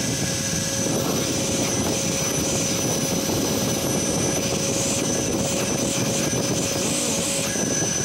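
Numatic Henry vacuum cleaner running steadily at full speed, freshly repaired, with a steady whine over a rush of air and good suction.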